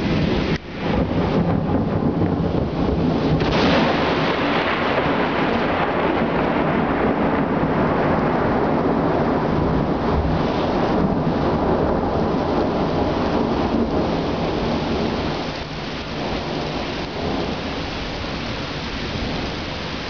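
Heavy rain pouring in a violent thunderstorm, with thunder rumbling under the downpour. The rain eases slightly after about fifteen seconds.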